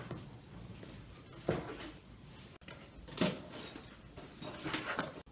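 Knife cutting meat into cubes on a cutting board: a few separate knocks of the blade on the board, the loudest about three seconds in.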